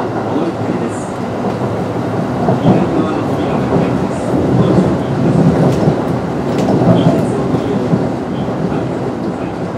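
Running noise heard inside a Kintetsu 9020 series electric train (Mitsubishi IGBT-VVVF): a steady rumble of the wheels on the rails, swelling a little in the middle.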